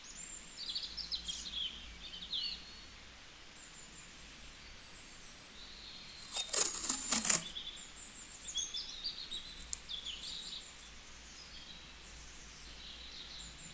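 Small birds chirping and twittering in short high calls and glides. About six and a half seconds in, a loud, short fluttering rustle like wings flapping.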